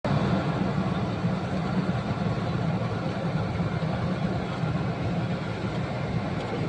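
A large engine running steadily: an even, low drone that neither rises nor falls.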